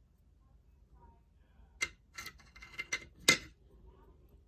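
Small metal padlock parts of a Master Lock 911 clicking and tapping against each other as they are handled and fitted together during reassembly: five or six sharp clicks in under two seconds, the last one the loudest.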